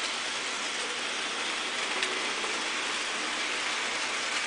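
Model train running on the layout's track: a steady, even whirring hiss from the locomotive and wheels, with a faint click about two seconds in.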